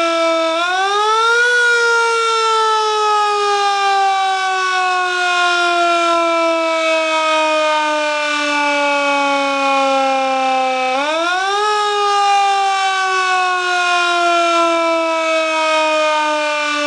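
Federal Signal Model C4 mechanical siren wailing. Its pitch climbs quickly about half a second in and again about eleven seconds in, and in between it slowly sinks as the rotor coasts down.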